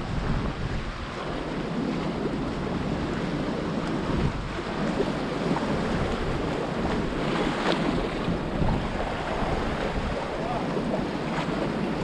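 Wind buffeting the microphone over the wash of sea waves splashing against concrete tetrapods.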